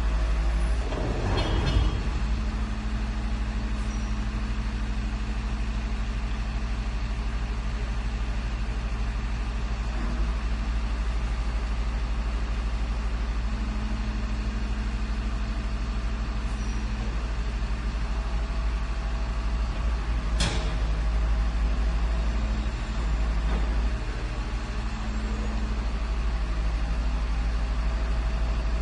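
Garbage truck's diesel engine running steadily in the street, with a clatter near the start and one short, sharp knock about two-thirds of the way through.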